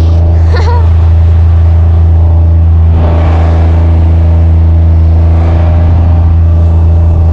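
Kubota's engine running steadily with a loud low drone as it drives through deep snow, pushing a heap of snow ahead of it; a rush of hiss swells about three seconds in.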